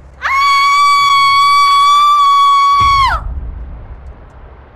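A woman's loud scream of fright, held on one high pitch for about three seconds, sweeping up at the start and falling away at the end.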